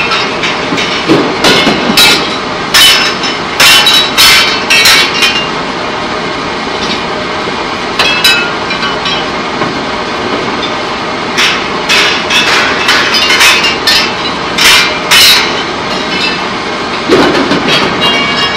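Industrial pipe-coating line machinery running with a loud steady din and irregular metallic clanks and bangs. The clanks come in clusters, with a calmer stretch in the middle.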